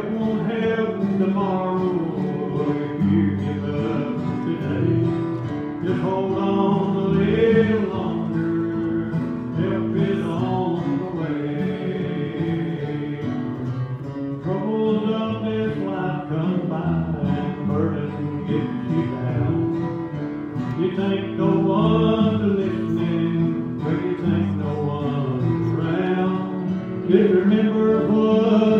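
Live country gospel music played on two guitars, an acoustic guitar strummed at the microphone with a second guitar playing along, with singing.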